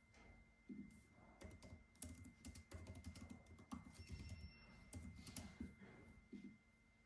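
Typing on a computer keyboard: quick, irregular key clicks that stop about half a second before the end, over a faint steady high-pitched tone.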